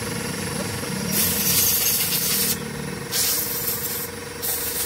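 Three bursts of hissing air, each a second or so long, over a steady low engine hum.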